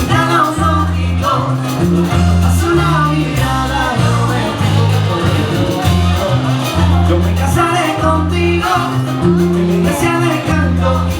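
Latin music with singing and a repeating bass line, in a salsa style.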